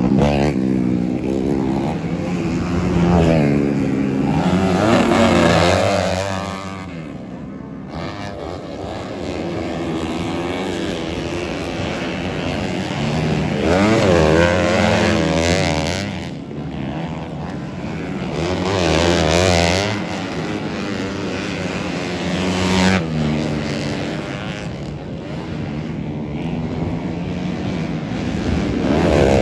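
Off-road racing motorcycles revving hard through the gears, the engine note climbing and dropping in several loud swells as riders pass.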